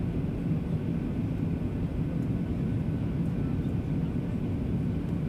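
Steady in-flight noise of a Boeing 737-800 on its way in to land: the even hum of its CFM56 turbofan engines mixed with the rush of air, heavy in the low end and unchanging throughout.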